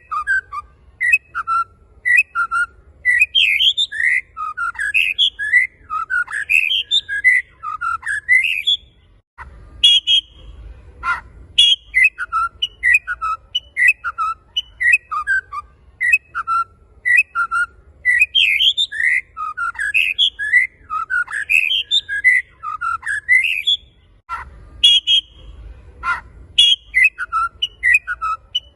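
Male white-rumped shama singing: rapid runs of clear whistled notes sliding up and down, one phrase after another. Twice the song breaks briefly, with a low rumble and a couple of sharp clicks.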